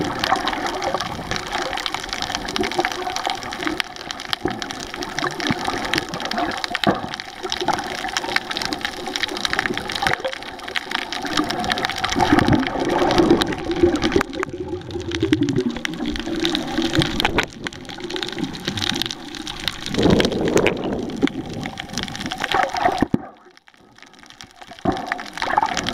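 Muffled underwater noise picked up by a camera held underwater: water sloshing and bubbling against the camera, continuous and uneven, with a brief drop to quiet near the end.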